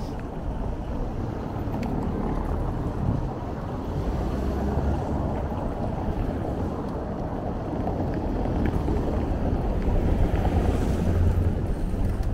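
Bicycle rolling over stone paving and cobbles, a steady rumble with wind on the microphone, mixed with city street traffic. The traffic grows louder near the end as a bus comes close.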